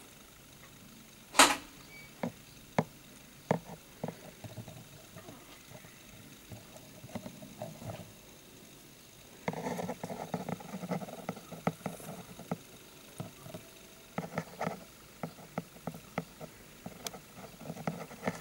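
Long metal tweezers clicking and tapping against a plastic terrarium, with a sharp click about a second and a half in as the loudest sound, then bursts of scraping and rustling in the loose substrate during the clean-up.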